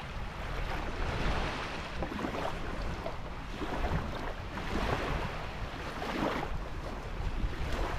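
Small waves lapping at the sandy shoreline, with wind rumbling on the microphone.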